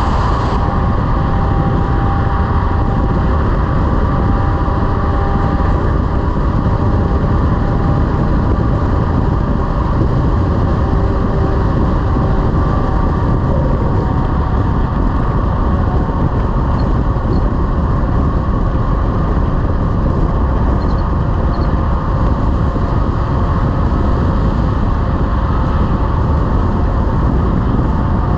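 Heavy-haul semi truck driving, pulling an excavator on its trailer: a steady, loud rumble of engine and road noise that doesn't change.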